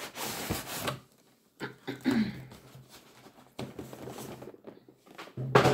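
A snug cardboard sleeve being slid off a cardboard advent-calendar box: several bursts of scraping and rustling, the loudest right at the start and just before the end.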